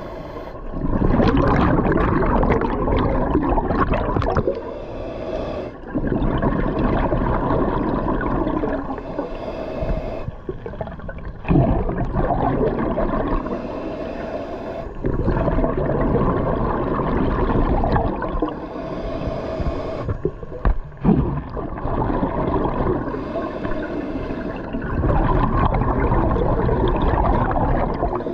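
Scuba diver breathing underwater through a regulator: long bubbling exhalations a few seconds each, alternating with quieter inhalation gaps, heard underwater.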